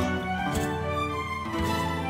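Instrumental background music: held notes that change pitch every so often, over a soft beat about once a second.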